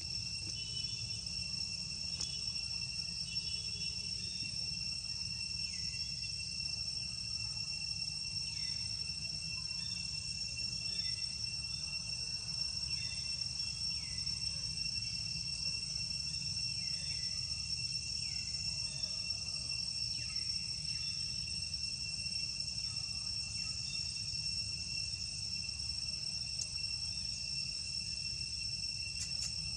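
Steady, high-pitched chorus of insects, several shrill tones holding level throughout. A short falling call repeats every second or two through the middle, over a low steady rumble.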